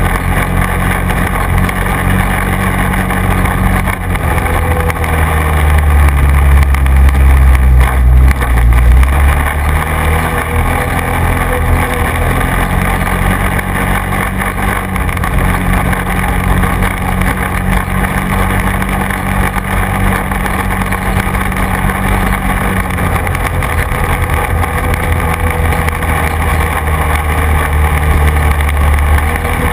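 Quad bike engine running on a dirt track, a steady low engine note that shifts in pitch a couple of times, with a louder low rumble about six to nine seconds in and again near the end.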